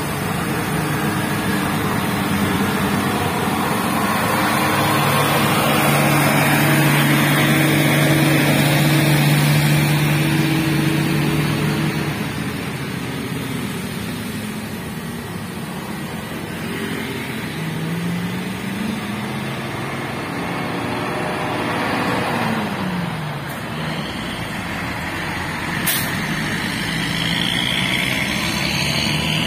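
Heavy vehicles climbing a steep road with diesel engines working, a coach bus and motorcycles passing first, with a steady engine drone loudest around a third of the way in. Further engines then rise and fall in pitch as vehicles change gear on the climb. A brief sharp hiss comes near the end, and then a small truck's engine pulls up the hill.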